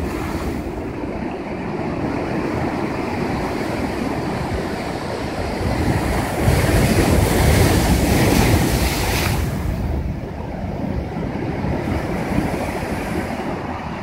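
Heavy ocean surf breaking against a rock riprap seawall, a continuous roar of churning water. About six seconds in a big wave hits the boulders and throws up spray, louder for about three seconds before falling back.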